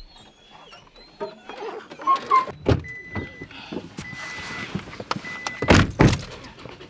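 Someone getting into a Toyota pickup's cab: rustling and knocks, the truck's warning chime sounding three times, then the driver's door shutting with a thud about six seconds in, after which the chime stops.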